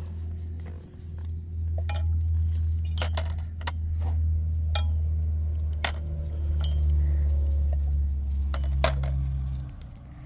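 Scattered sharp clinks and knocks over a steady low rumble that cuts off near the end.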